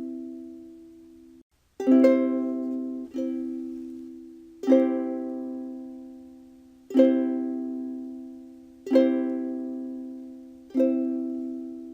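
Ukulele strumming a C major chord, struck again about every two seconds and left to ring and fade between strums. The sound drops out completely for a moment about a second and a half in.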